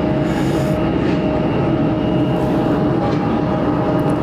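Jet airliner engines running, a steady rumble with a constant whine.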